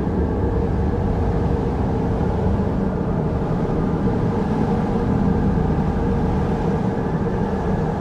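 Wind blowing steadily as a low, rumbling noise, swelling slightly in a gust about halfway through.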